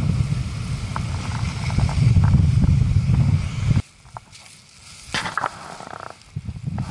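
Heavy wind rumble buffeting the camera's microphone over rough sea, cutting off abruptly about four seconds in. After that it is much quieter, with a few short rustles and crunching knocks.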